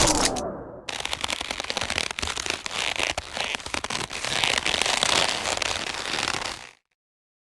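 A dense run of rapid crackles and pops, a fight sound effect. It starts about a second in and cuts off abruptly near the end.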